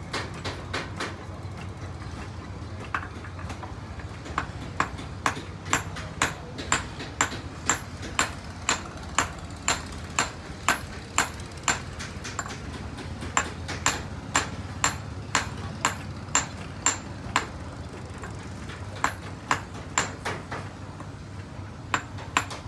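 A hammer tapping metal in a silversmith's workshop: sharp ringing strikes about two a second, in runs broken by short pauses, over a steady low hum.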